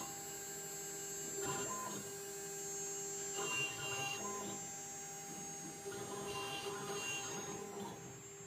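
Mini CNC engraving machine cutting a copper seal: a steady whine from the running spindle, with short runs of stepper-motor buzzing every couple of seconds as the cutter moves across the work.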